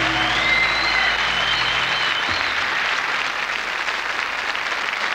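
Studio audience applauding at the end of a song, while the song's last sustained chord fades out about two seconds in.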